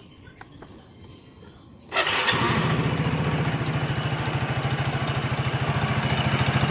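A Yamaha Mio Soul i 115 scooter's single-cylinder engine starting about two seconds in and settling into a steady idle with a quick, even pulse. It runs with the CVT side cover off and a drive belt that has gone slack.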